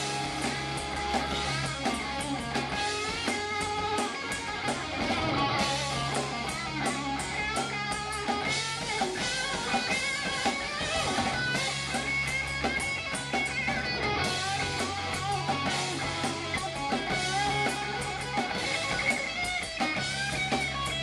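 Live rock band playing an instrumental passage: distorted electric guitars over a drum kit and low bass, with no singing.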